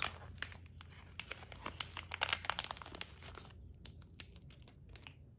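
Packaging being unwrapped, crinkling and tearing with many small crackles that thin out to a few scattered clicks after about three and a half seconds.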